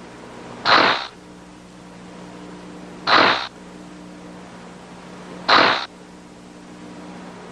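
Synthesizer sound effects: three short hissing whooshes, evenly spaced about two and a half seconds apart, over a steady low synth drone.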